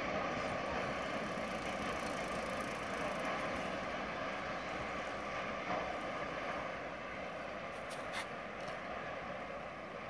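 Freight train of tank cars rolling away along the track, its steady wheel-on-rail noise slowly fading as it recedes, with a few faint clicks about eight seconds in.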